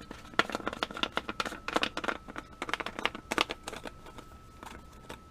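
Seasoned-salt shaker being shaken over strips of raw meat: a quick run of dry rattles and taps for about three seconds, thinning out toward the end.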